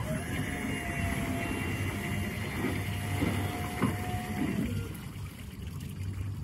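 The boat's powered bow door being raised: a steady motor whine that stops after about four and a half seconds, with a single knock about four seconds in. It plays over the low, steady rumble of the idling outboards.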